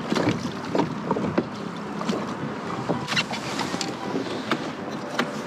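Small boat being rowed: the oar knocks and clicks irregularly in its metal oarlock, water splashes, and wind rumbles on the microphone.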